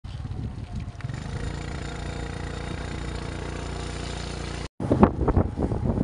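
Steady hum and rumble of a running vehicle engine. After a short break about three-quarters of the way in, it gives way to gusts of wind buffeting the microphone.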